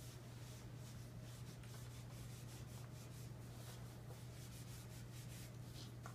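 Faint rubbing of a napkin wiping a wet hardwood floor, over a steady low hum.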